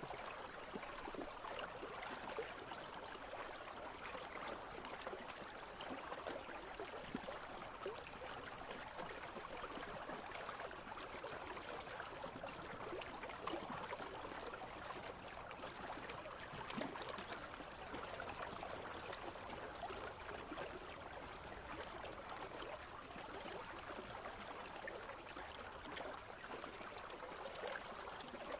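Country stream flowing steadily, with a continuous babbling and trickling of water.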